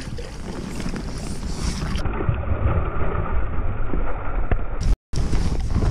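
Low rumble of wind and clothing rubbing on a chest-mounted camera's microphone, with scuffs on a dirt bank as the angler moves to the edge of the water. A hooked bass splashes at the surface about four seconds in. The sound dulls about two seconds in and drops out briefly near the end.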